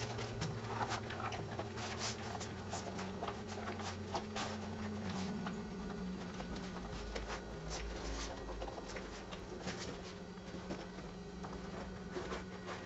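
A sewn synthetic-leather zip pouch being turned right side out by hand: irregular rustling and crinkling of the material with many small clicks.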